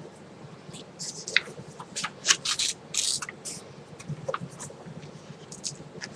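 Paper rustling as the pages of a booklet are handled and turned: a series of short swishes and scrapes, busiest between about one and three and a half seconds in, then lighter handling.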